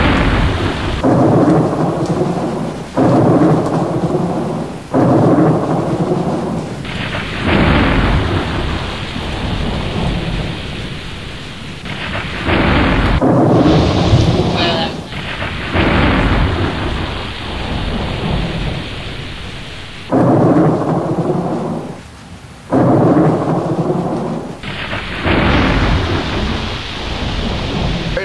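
Thunderstorm: thunder rumbling over steady rain, with gusting wind in the microphone. The noise cuts in and drops back abruptly every couple of seconds.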